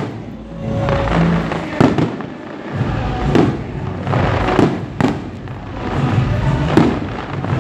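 Aerial fireworks bursting in a steady barrage: repeated sharp bangs about a second or so apart, with crackling between them and music playing underneath.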